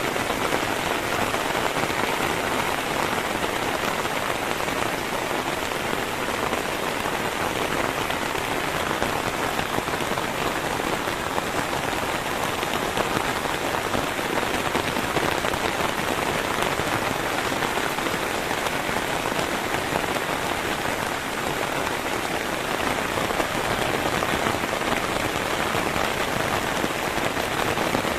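Heavy rain falling steadily, an even unbroken hiss of drops with no thunder.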